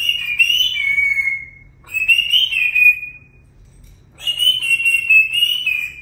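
Parrot whistling: three long, high whistles that waver in pitch, separated by short gaps.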